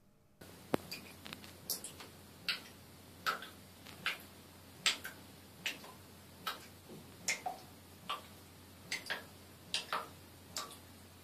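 A series of short, sharp clicks, fairly evenly spaced at roughly one every 0.8 seconds.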